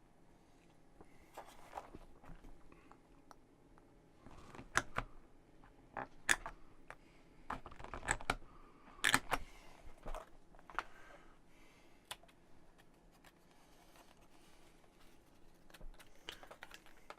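Small laser-cut MDF kit pieces being handled and fitted together: scattered light clicks and taps of wood on wood, a few sharper ones about five, six and nine seconds in.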